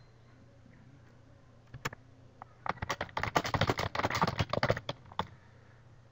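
Typing on a computer keyboard: a few single keystrokes about two seconds in, then a quick, dense run of keystrokes that stops about five seconds in.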